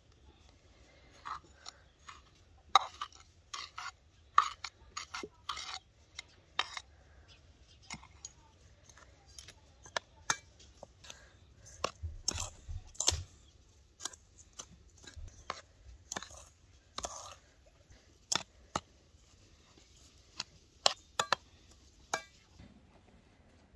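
Metal spoon stirring ground walnuts and sugar in an enamel bowl, with irregular scrapes and clinks against the bowl.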